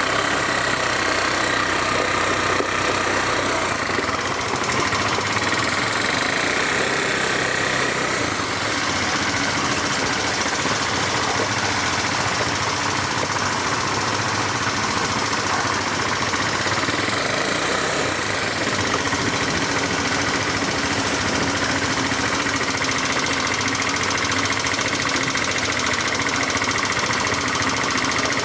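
ATV engine running steadily as the quad is ridden, with no marked revving or stops.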